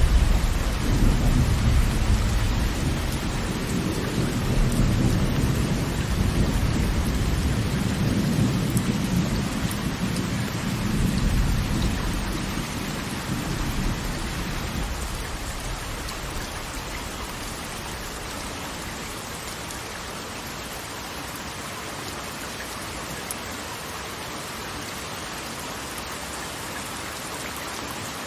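A long, rolling rumble of thunder that swells a few times and dies away about halfway through, over a steady hiss of heavy rain.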